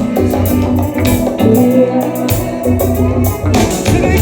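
Reggae instrumental music: a steady bass line and drum beat with guitar.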